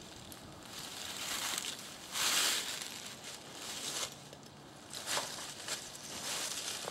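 Footsteps crunching through dry fallen leaves, several uneven crunches about a second apart.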